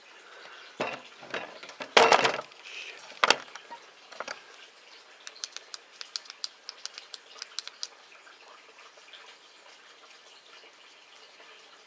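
A few sharp knocks and rustles, the loudest about two seconds in, then a run of light, quick, irregular ticks.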